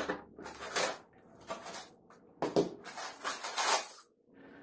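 Small cardboard box being cut open with a knife and its flaps pulled apart: a series of scraping, rustling bursts of cardboard handling.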